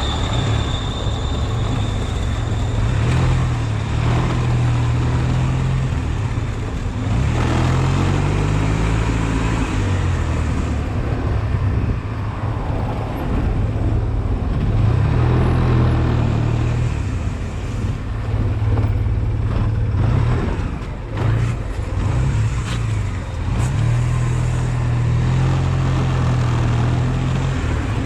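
Honda Silver Wing scooter's twin-cylinder engine running in slow stop-and-go traffic, its pitch rising and falling again and again as it pulls off and eases back.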